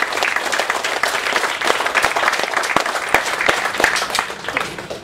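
Crowd applauding and clapping, with a few cheers, dying away near the end.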